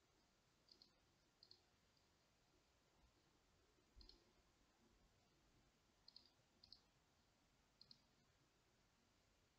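Faint computer mouse clicks, about six of them spread unevenly, most heard as a quick double tick of button press and release.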